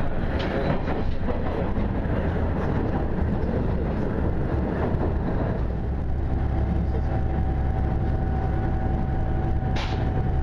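Inside a moving Hachikō Line diesel railcar: a steady low rumble of the engine and wheels on the rails, which grows heavier with a steady hum joining about six seconds in, and a brief sharp noise near the end.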